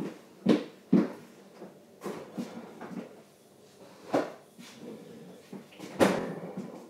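Scattered knocks and bangs of kitchen doors being opened and shut, five or so, the loudest about six seconds in.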